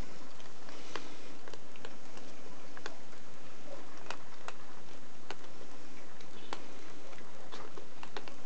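Cats eating food from sachets, with irregular short clicks of chewing and licking over a steady hiss.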